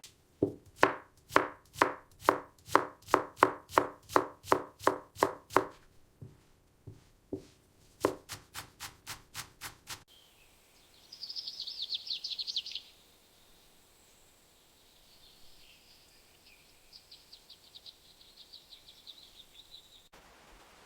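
Knife chopping vegetables on a cutting board, sharp even strokes about two or three a second, thinning out and then picking up again. About halfway through the chopping stops and birds chirp in quick high trills.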